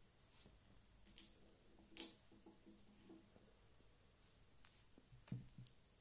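Faint, scattered clicks and light knocks of small plastic and metal parts being handled: a flashlight's plastic battery holder and aluminium body, and a battery. The sharpest click comes about two seconds in, and a duller knock comes near the end.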